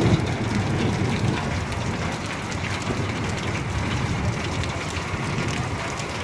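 Heavy rain falling and pattering steadily, with a low rumble at the start that eases off over the first second or two.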